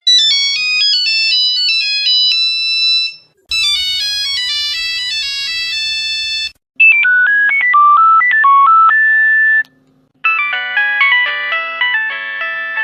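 Four different phone ringtone melodies, each about three seconds long, played one after another with short silent gaps between them; the third sits lower in pitch than the others.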